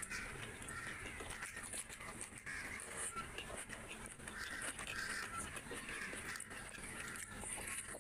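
A person eating rice and curry by hand: wet chewing and lip-smacking, with the squish of fingers mixing food on the plate.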